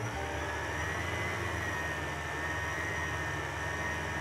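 Electric stand mixer running fast, its dough hook kneading bread dough in a stainless-steel bowl: a steady motor whine over a low rumble, the whine rising slightly in pitch in the first second as the motor comes up to speed.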